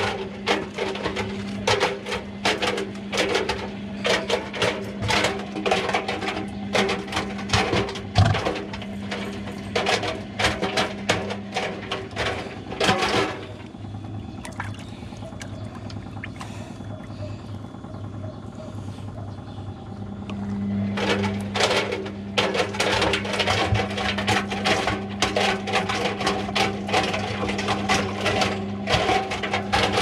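Front-loading washing machine running a wash: a steady motor hum under water sloshing and balloons knocking and slapping against the tumbling drum. For several seconds in the middle the knocking and splashing stop and only a quieter hum is left, then the tumbling starts again.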